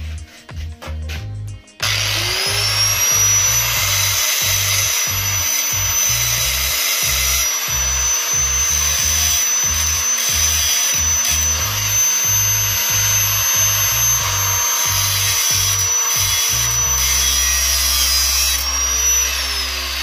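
Electric grinder spinning up about two seconds in with a rising whine, running steadily while it grinds down the corners of metal parts, then winding down near the end. Background music with a steady beat plays underneath.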